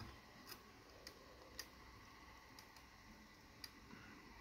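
Near silence broken by a handful of faint, sharp, irregularly spaced ticks from soldering work on a circuit board, as the iron and a hand tool touch the board and component leads while two capacitors are being replaced.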